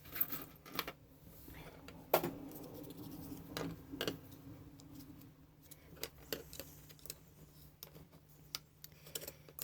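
Scattered light metallic clicks and clinks of small brass scrap pieces being handled and worked loose, with a faint steady low hum underneath.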